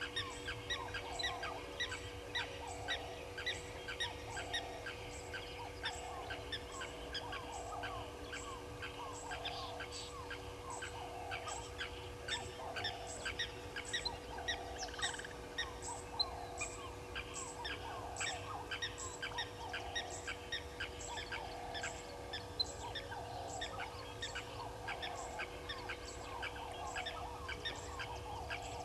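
A chorus of wild animal calls at a waterhole: a falling call repeating about once a second over a dense, steady run of short high chirps or ticks, with a constant low hum underneath.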